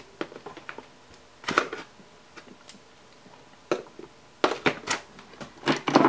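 Irregular light clicks and knocks of handling around a power supply circuit board, scattered through quiet room tone. The clearest come about a second and a half in, and a quick cluster comes near the end.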